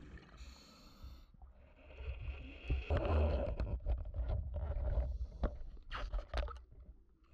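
Underwater sound around a spearfishing diver: a low rumble of water noise with a hissing, gurgling stretch in the middle. Several sharp clicks and knocks come near the end as the speargun's spear shaft is handled.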